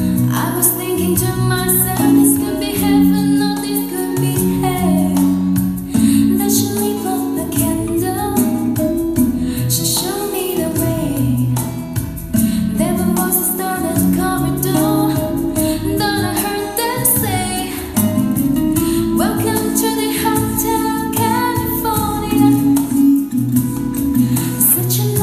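A soft, light song with a female singer played back through a pair of Kenwood LS-N550 three-way speakers with 18 cm bass drivers, heard in the room as a speaker test.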